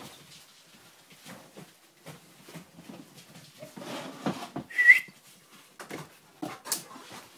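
Labradoodle and her puppies playing: scuffling, with one short high squeal, the loudest sound, about five seconds in.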